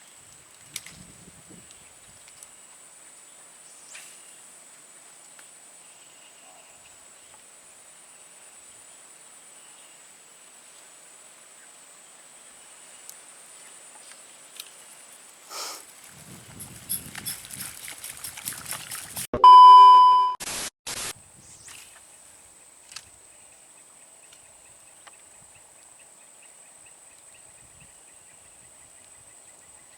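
A steady high-pitched insect drone over the canal-side vegetation. About sixteen seconds in, a fast rattle of clicks builds up. It gives way to a loud electronic beep lasting about a second, then two short sharp cracks.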